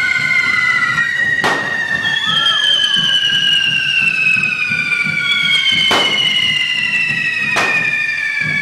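Hand-held correfoc firework fountains spraying sparks, giving a steady high whistling screech that slowly falls in pitch, cut by three sharp firecracker bangs.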